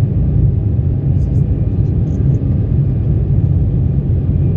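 Steady low rumble of engine and airflow noise inside the cabin of an Embraer 190 airliner with its twin GE CF34 turbofans, climbing out after takeoff.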